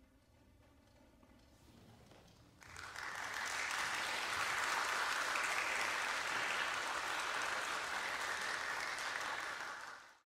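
A short hush, then an audience breaks into applause about three seconds in. The clapping holds steady and cuts off suddenly near the end.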